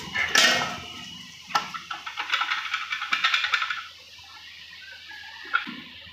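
Steel parts clinking and rattling as a PTO shaft with its ball bearing is worked into a tractor gearbox housing by hand: a sharp knock, then a stretch of rapid fine rattling, and a single click near the end.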